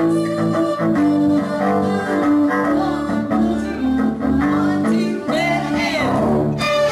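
A string group of cellos plays a repeating, rhythmic figure of low bowed notes, and violins join in just before the end.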